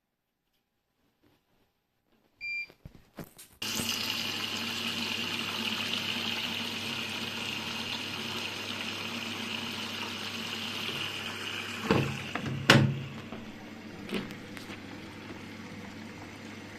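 A short beep and a few clicks, then the Siemens WM14N2L3 washing machine's inlet valve opens and water rushes steadily in through the detergent drawer, with a low hum under it. Two sharp knocks come about two-thirds of the way through, and the filling carries on a little quieter.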